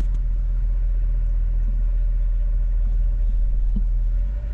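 Steady low rumble of a truck heard from inside its cab, moving slowly in backed-up traffic.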